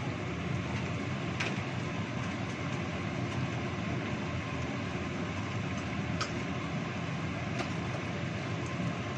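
A wok of chicken in coconut-milk sauce simmering over a lit gas stove burner: a steady rushing noise with a few sharp pops.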